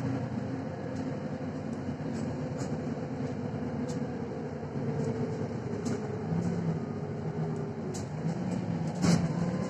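Cabin sound of a Mercedes-Benz Citaro city bus under way: the engine and drivetrain running steadily with road noise, the engine tones shifting partway through, with scattered light ticks and rattles. A loud thump about nine seconds in.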